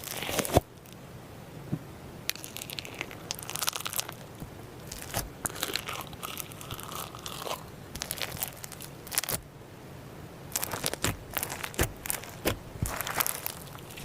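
Slime being handled, squeezed and poked, giving irregular crackling and crunching clicks. The clicks come thickest in the last few seconds.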